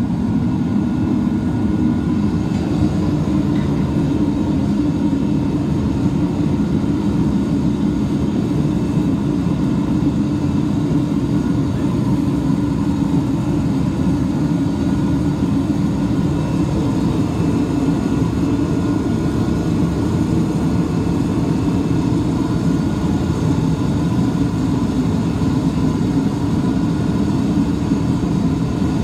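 Burner of a small foundry crucible furnace running, a loud, steady rushing noise with a faint even hum, as it heats bronze for pouring.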